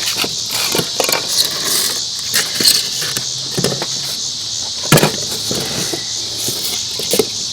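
Scattered clicks, knocks and rustles of an air rifle and its packaging being handled, the sharpest knock about five seconds in, over a steady high chirping of insects.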